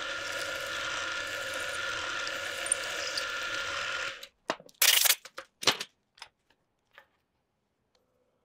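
A machine spindle driving a half-inch twist drill through aluminium, a steady whirring cut with a faint whine, which stops abruptly about four seconds in. A few sharp clicks and knocks of metal parts being handled follow.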